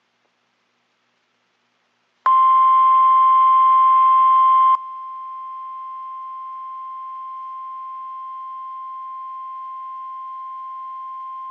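NOAA Weather Radio 1050 Hz warning alarm tone, a single steady beep that starts about two seconds in. It is loud and rough for about two and a half seconds, then drops in level and holds steady. The tone signals that a warning broadcast follows, here a severe thunderstorm warning.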